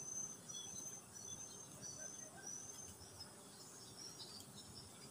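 A series of short, high-pitched chirps from a small unseen animal, about two a second, strongest in the first three seconds and fainter and more scattered after, over a faint steady high hiss.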